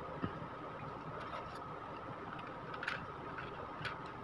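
Handling a small plastic folding drone: a few sharp plastic clicks and taps as its body and folding arms are moved, over a faint steady high tone.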